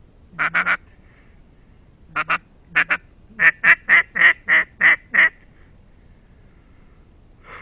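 Mallard-hen duck call blown in quacks: a quick triple quack, two doubled quacks, then a run of seven evenly spaced quacks at about three a second, like a hen's greeting call.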